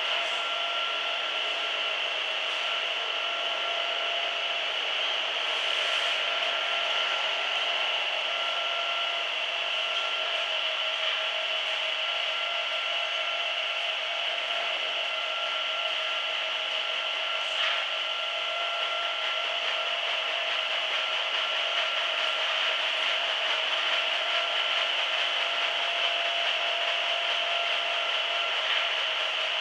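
Hanta Duster 300 rug-dusting machine running steadily as a rug is carried through it: a continuous whirring hiss with a steady hum, and a couple of faint knocks about 6 and 18 seconds in.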